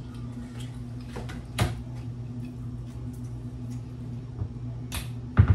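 Kitchen handling noises over a steady low hum: a sharp click about a second and a half in, another near the end, then a louder low thump.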